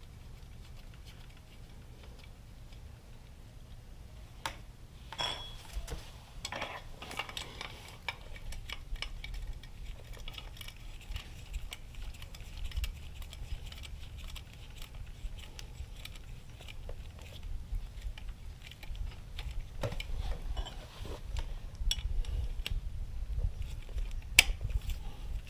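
Hand tools and metal parts clinking and tapping as a foot peg bracket is bolted back onto a motorcycle frame: scattered irregular clicks and knocks, a few with a short metallic ring, and one sharper click near the end.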